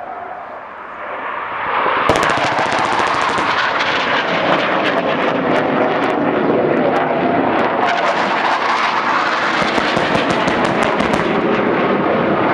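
A military fast jet's engine roar building over about two seconds, then a loud steady roar for the rest, crossed by many sharp cracks and bangs from the pyrotechnic explosions of a simulated ground attack.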